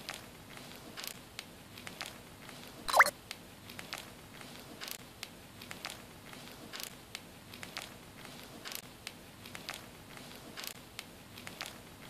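A budgerigar grinding its beak: faint, irregular little clicks and scrapes, a sign of a sleepy, contented bird settling to rest. About three seconds in, a short rising whistle is the loudest sound.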